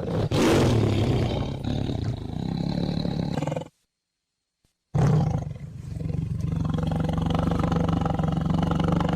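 Tiger roaring: two long roars of about four seconds each, with a second of silence between them.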